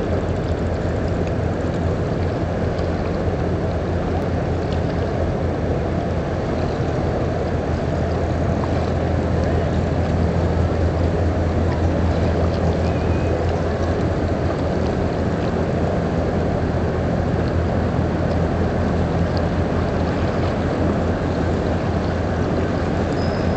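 Boat diesel engine running with a steady low drone, under a wash of water and wind noise, slightly louder around the middle.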